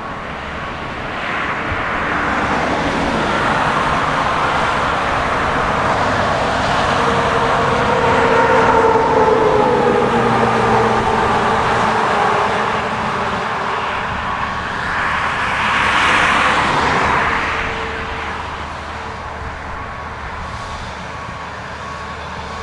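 Shuttlewagon SWX410 railcar mover working as it moves grain cars: its engine noise builds and swells twice with gliding pitch, then settles. Near the end its backup alarm starts beeping.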